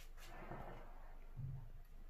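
Faint kitchen handling noises: a light click at the start, then a soft low thump about one and a half seconds in.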